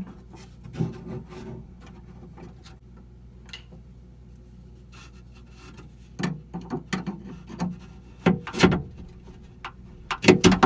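Door latch rods and their retainer clips being worked into place inside a car door: scattered clicks, rubs and small knocks, sparse at first and busier in the last few seconds.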